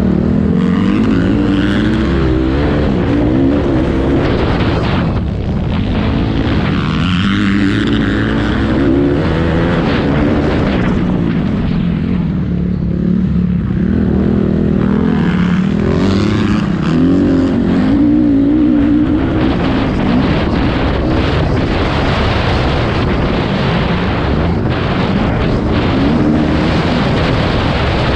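A racing engine revving hard, loud throughout, its pitch rising and falling over and over as it accelerates and backs off.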